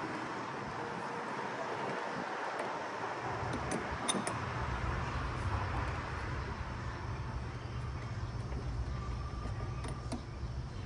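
Steady background noise; a low rumble comes in about four seconds in and keeps going, with a few faint clicks.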